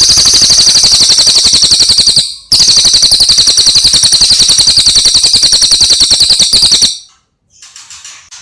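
Recorded songbird song for bird mastering: a loud, very fast rattling trill. It breaks off briefly about two seconds in, resumes, and stops near the end, where a few softer chirps follow.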